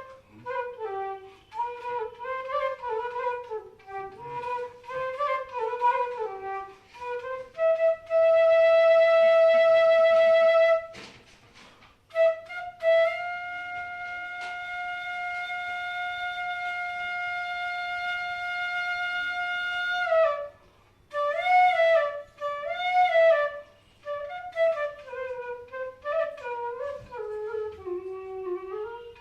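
Bansuri (Indian bamboo flute) playing a slow, ornamented melody with sliding and bending notes. About eight seconds in it holds a loud note, breaks off briefly, then holds another note steadily for about seven seconds before going back to quick ornamented phrases.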